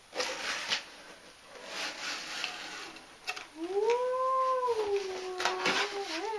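Cardboard box flaps being pulled open, rustling with a few sharp clicks. About three and a half seconds in, a woman starts humming one long note with her lips closed; it rises and then holds.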